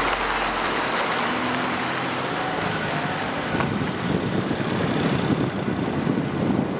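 Vehicle driving noise with wind rumbling on the microphone. The wind buffeting grows stronger about halfway through.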